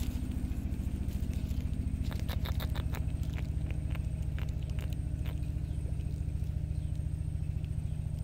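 An engine running steadily with a low, rapid, even chugging. Over it, a cluster of light clicks and rustles about two to three seconds in, with a few more later, as a small bait fish is handled and cut on a scrap of paper.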